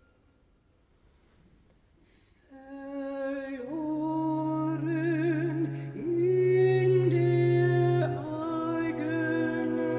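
Near silence, then about two and a half seconds in a woman's voice begins singing long held notes with vibrato. About a second later low bowed strings join with a sustained note beneath her, and the music grows louder.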